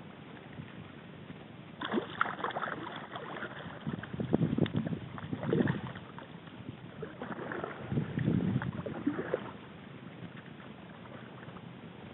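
Kayak paddle strokes: the blade dipping and splashing in the water in three bouts, beginning about two seconds in and stopping a couple of seconds before the end.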